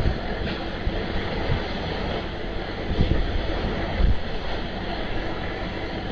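Wind buffeting the microphone: a steady rushing noise with a few heavier low gusts, about three and four seconds in.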